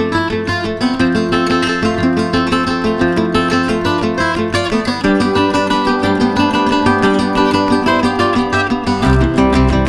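Background music led by a plucked, strummed acoustic guitar with a steady rhythm; a deeper bass line comes in about nine seconds in.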